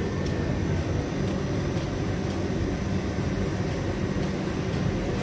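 Steady low rumbling background noise of a busy food stall, ventilation or traffic hum, with a few faint clinks of metal utensils against steel bowls.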